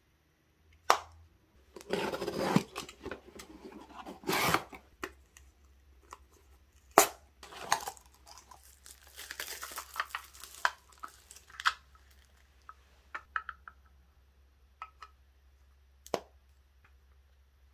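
Unboxing handling sounds: thin plastic protective film and packaging rustling and crinkling, a small cardboard box being opened, with scattered sharp clicks of plastic parts being handled.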